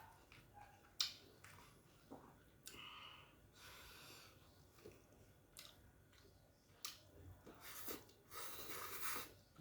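Faint mouth sounds of a person eating: chewing with scattered short wet clicks, and longer breathy stretches around the middle and near the end.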